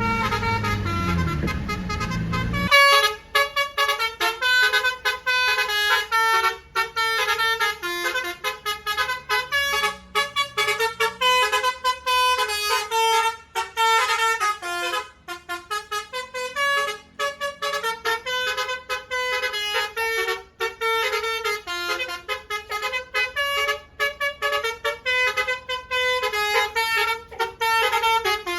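An Indonesian bus's telolet basuri horn, a set of air horns, plays a fast melody of short, rapid-fire notes. It starts about three seconds in, after a steadier sound with a low wavering tone.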